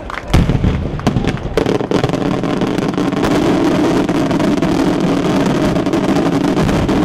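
Daytime aerial fireworks: two sharp bangs in the first second, then from about a second and a half in a dense barrage of overlapping reports that merge into a continuous crackling rumble.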